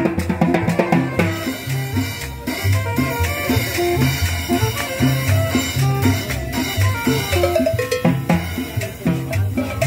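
Live Latin dance music, salsa-style, from a small street combo: drums and percussion keeping a steady beat over a moving bass line.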